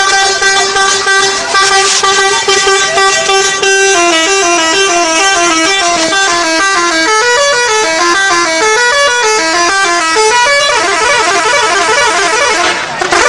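Bus 'telolet' horn, a multi-tone musical horn: it holds one long steady note for about four seconds, then plays a quick tune of stepping notes, and near the end switches to a faster warbling run of notes.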